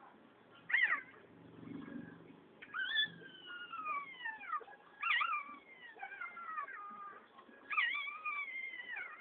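Newborn Shih Tzu puppies crying: a short squeal about a second in, then a run of high, thin whines that fall in pitch, each lasting one to two seconds.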